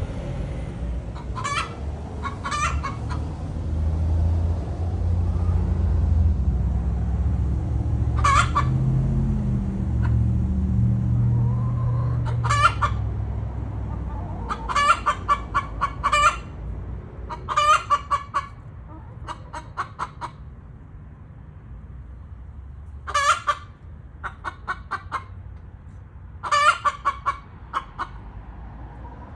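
Domestic hens cackling in short bursts of rapid, repeated clucks again and again. A low rumble runs under the first half and then fades.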